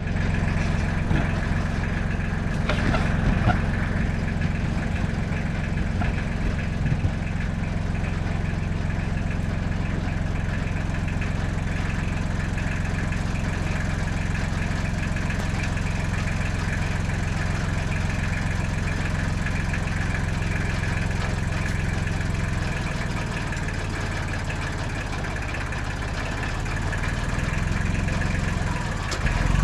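An engine running steadily at a low idle, with a deep, even drone.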